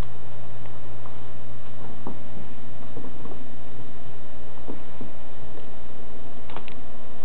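A steady low hum with scattered light ticks and clicks, and a sharper pair of clicks about six and a half seconds in.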